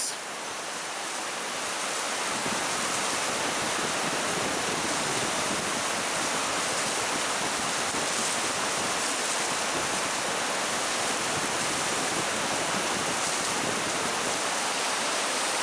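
Vernal Fall's falling water: a steady, even rush of noise that grows over the first two seconds and then holds.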